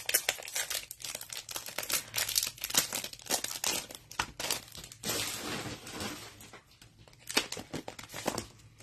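Clear plastic packaging crinkling and rustling in the hands as a die set is unwrapped, in many short irregular crackles with one longer rustle about five seconds in.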